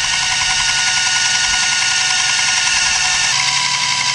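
Electric starter cranking a small pressure-washer engine with its spark plug out: a steady, fast whine with no compression strokes, spinning to pull fuel up through the pulse fuel pump into the filter. A little after three seconds the tone shifts slightly.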